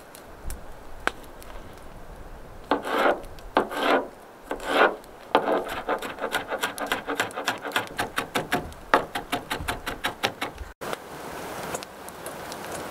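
Knife chopping a red jalapeño pepper on a thin plastic cutting board: a few slower slicing strokes, then a long run of rapid, even chops, about five a second. Near the end a softer, steady scrape follows as the chopped pepper is slid off the board into a steel bowl.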